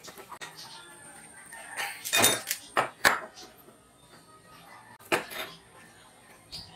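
Metal engine parts clinking and knocking as a small aluminium engine crankcase and its cover are handled on a workbench. There is a cluster of sharp knocks about two to three seconds in and another knock about five seconds in.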